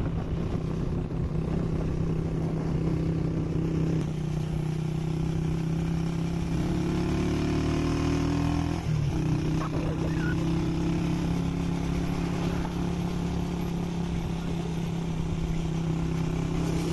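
Engine of the vehicle carrying the camera, running steadily under way; its pitch climbs slightly, then breaks and drops about nine seconds in, as at a gear change, and runs steady again.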